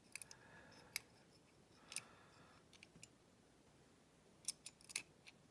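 Faint, scattered metallic clicks and light scrapes of a pick wire and tension tool working inside a small lever-type cabinet lock, feeling for its single lever; a few clicks near the start, one each at about one and two seconds in, and a small cluster near the end.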